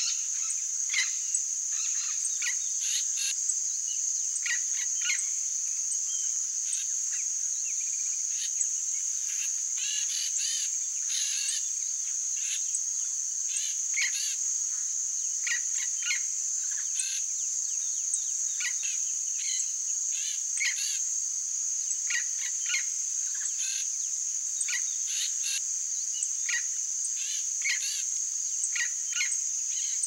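Steady high-pitched insect chorus, with many short chirping calls scattered over it throughout.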